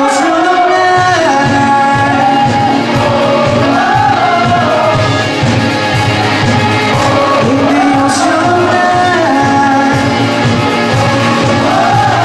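Live rock band playing: a male vocalist sings a melodic line over electric guitars, bass guitar, drum kit and keyboard, heard through the venue's PA.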